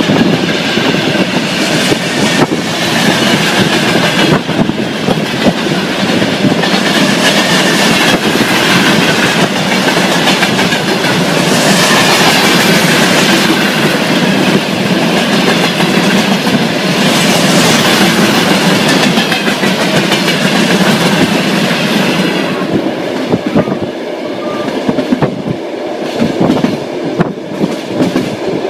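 Train wheels clattering over rail joints: a loud, steady running rumble. Near the end the rumble eases and the individual clacks stand out more clearly.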